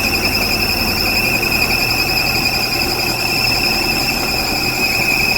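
Diesel engine running with a steady high-pitched whine over a low, even hum.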